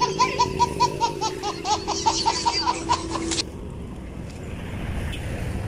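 A burst of rapid, high-pitched laughter, about three and a half seconds of quick even pulses, that cuts off suddenly, followed by a low background rumble.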